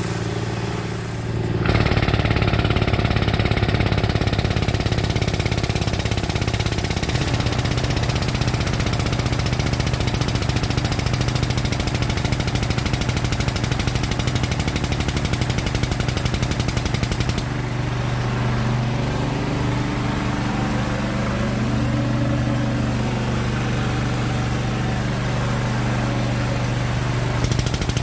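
Rapid, steady mechanical chatter of a frame-straightening machine's powered pump running, starting sharply about two seconds in as another pull is made on the damaged front end. It changes in tone a little past halfway.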